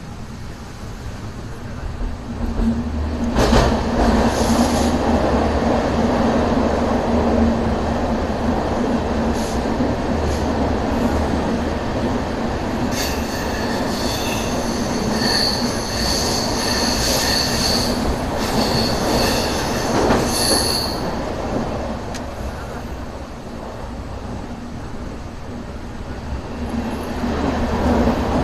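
Passenger train running through a tunnel, its coaches' rumble and wheel noise getting louder about two seconds in as it enters. About halfway through, a high metallic wheel squeal sounds for several seconds, with a few sharp knocks from the wheels on the rails.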